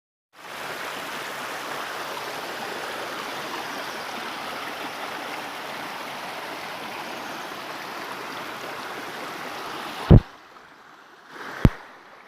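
Steady rush of flowing water. It cuts off abruptly about ten seconds in, followed by two sharp knocks.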